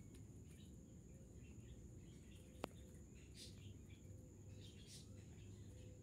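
Faint outdoor ambience: scattered bird chirps over a steady high-pitched hum, with one sharp click near the middle.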